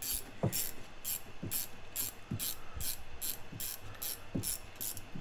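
Ratcheting wrench clicking steadily, about four clicks a second, as it turns a gear puller's forcing bolt to draw the output flange off a Volvo M40 gearbox's output shaft.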